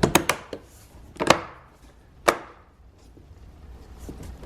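Plastic door-panel cover plate being pressed on, its clips snapping into place: a quick run of clicks at the start, then two sharp snaps about a second apart.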